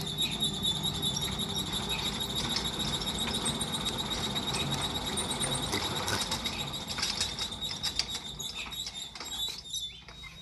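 Three-phase electric motor switched on but straining under a heavy load of flywheels, a gearbox and belts, unable to bring it up to speed: a steady high-pitched squeal over a low hum, with rapid clicking. It cuts off suddenly near the end as the supply phases drop out.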